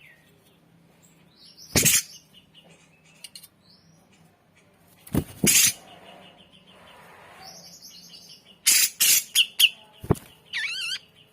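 A cucak jenggot (grey-cheeked bulbul) calling in short, clear whistled notes, ending in a quick wavering trill. Several loud, sharp knocks cut in between the calls.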